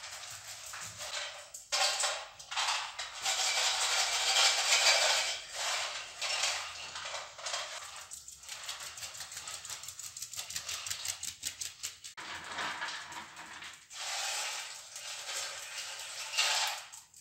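Dry dog food rattling and clattering in a dog's bowl, a dense run of small clicks. It is loudest a few seconds in and again near the end.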